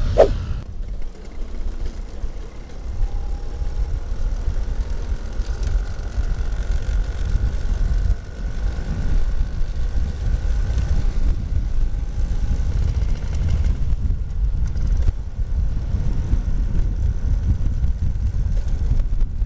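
Vintage Vespa Super 150 two-stroke scooter running at steady riding speed, heard as a deep, even rumble of engine and wind on a helmet-mounted microphone. A short swish with a falling pitch at the very start.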